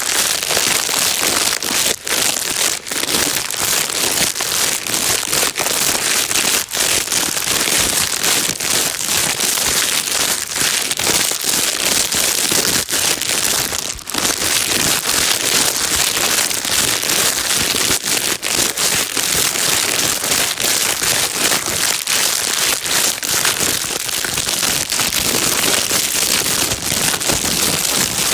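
Plastic bag being crinkled and rustled without pause: a dense, steady crackling made of countless small crackles.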